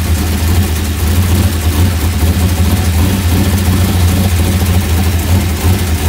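Dirt-track race car engine running loud and steady at a constant pitch, with a dense wash of mechanical and wind noise over it.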